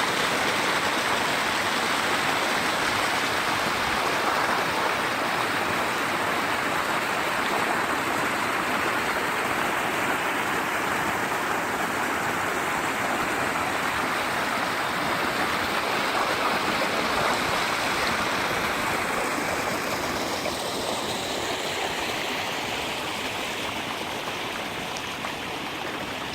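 Mountain valley stream running, a steady rush of water that grows a little quieter over the last few seconds.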